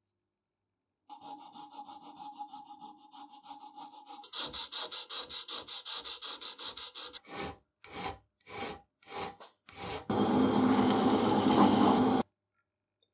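Hand file rasping back and forth across a small metal switch lever held in a vise: quick short strokes at first, then slower, longer ones. About ten seconds in, a click and a drill press running with a countersink bit, loud and steady for about two seconds before it stops abruptly.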